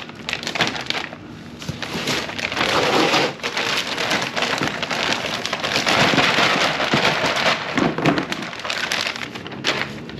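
Plastic packaging crinkling and rustling as parts are handled and unwrapped, a dense run of close crackles that swells and eases.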